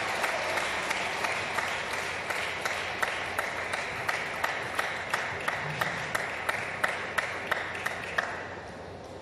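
Crowd applause dying away near the end, with sharp, evenly spaced clicks about three a second on top: a table tennis ball struck back and forth in a rally, bouncing off bats and table. The clicks stop just before the applause fades.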